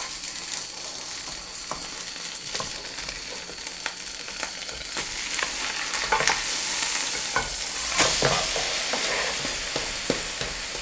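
Korean seafood pancake (haemul pajeon) sizzling in a frying pan, with wooden spatulas scraping and tapping the pan as it is lifted and flipped. The sizzle grows louder from about six seconds in, once the pancake is turned over.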